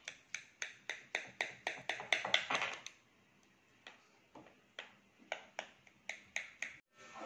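Kitchen knife sawing through a baked lasagna in a glass dish, with a sharp click on each stroke at about four a second. The clicks pause for about a second and a half in the middle, then start again.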